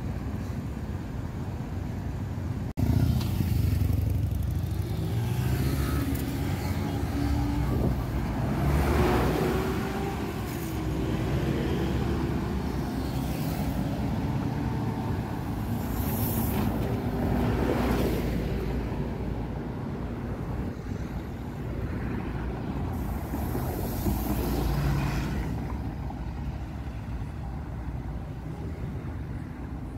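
Busy street traffic: a city bus and cars passing and pulling away, their engine hum rising and falling in pitch, with several louder passes. The level jumps suddenly about three seconds in.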